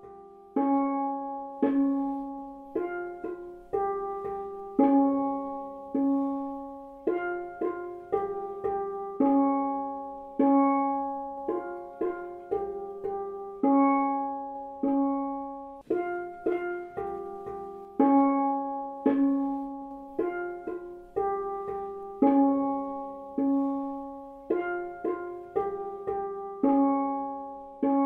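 Soundtrack music: a slow, repeating melody of ringing struck notes, each starting sharply and fading away, mostly about one a second with quicker runs in between.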